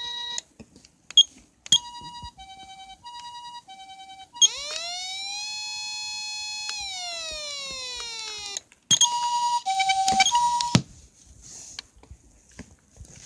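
A Patlite SAP-500RBZ-HF electronic siren amplifier running through its tones. First comes the ambulance-style two-tone hi-lo siren, switching between a higher and a lower note about twice a second, broken by a couple of sharp clicks. About four seconds in, one long wail rises, holds for about two seconds and slowly falls away. Near the end there is a louder, harsher burst of the two-tone pattern, which cuts off.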